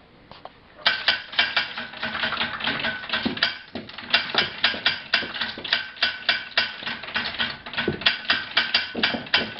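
Hand-cranked Gatling gun being turned over by its crank, the action clacking in a fast, even rhythm of about four to five clacks a second, starting about a second in with a brief pause near the middle.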